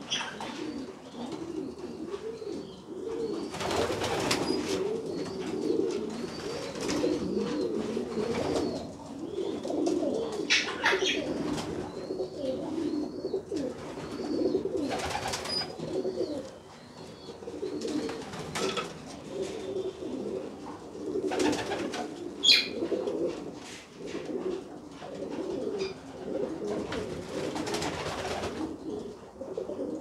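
Several homing pigeons cooing in their loft, a continuous overlapping low warble, with short rustles now and then.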